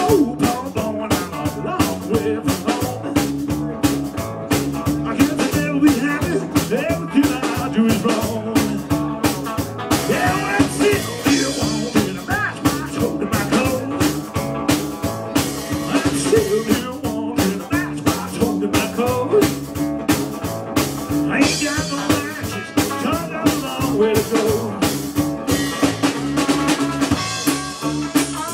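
Live rock and roll band playing: hollow-body electric guitar, plucked upright double bass and drum kit keeping a steady beat.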